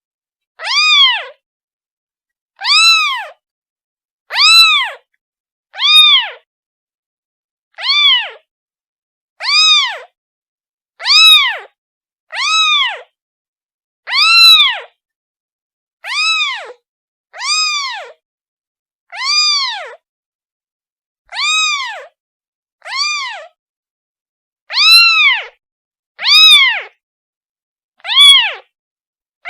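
A kitten meowing over and over, calling for its mother: short, high-pitched meows, each rising then falling in pitch, one every second or two, about seventeen in all.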